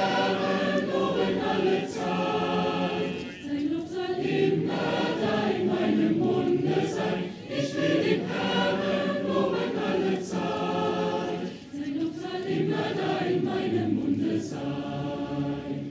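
A large crowd singing together as one mass choir, led by a conductor. The song comes in sustained phrases with brief breaks between them.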